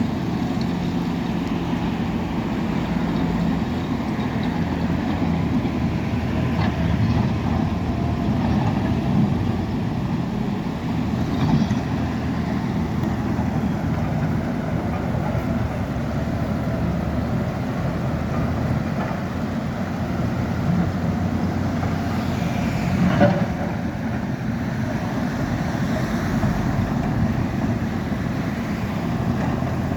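Heavy earthmoving machinery's diesel engines running steadily under work, with a couple of short knocks from the machines.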